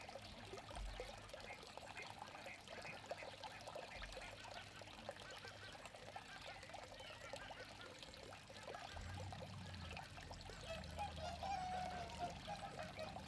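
Water trickling steadily into a small pond, with many short bird chirps and twittering calls throughout. A clearer run of wavering calls comes near the end, over a low rumble that starts about nine seconds in.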